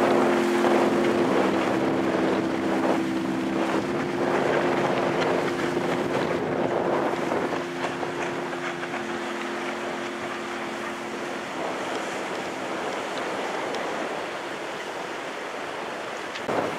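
Wind buffeting the microphone over rushing, splashing water, with soft sustained music chords underneath that fade out about twelve seconds in.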